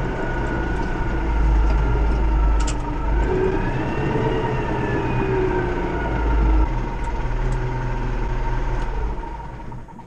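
Tractor engine running, heard from inside the cab with a deep, steady drone. The pitch rises a few seconds in and falls back just past the middle, where the low drone also drops. It fades out near the end.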